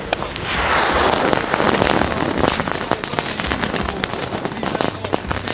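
Two small firework ground fountains hissing as they spray sparks, with fine crackling through the hiss; the hiss flares up about half a second in.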